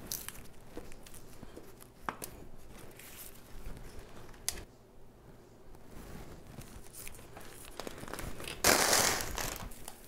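Hands setting amaryllis bulbs into potting soil in a galvanized metal tub: scattered soft rustles and light taps, then a loud crinkling, tearing burst lasting about a second near the end.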